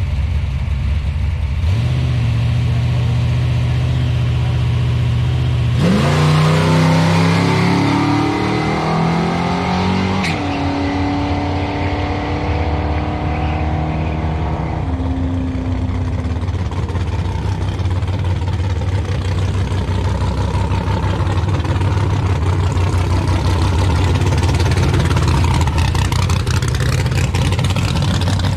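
A drag-racing pickup's engine held at raised revs on the starting line, then launching hard about six seconds in and revving up through several gear changes as it pulls away down the strip, with a sharp pop about ten seconds in. Later a steady engine idle carries on close by.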